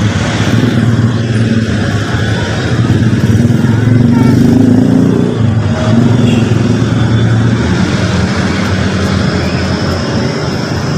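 A motor vehicle's engine running steadily nearby, a low drone that swells and eases a little without stopping.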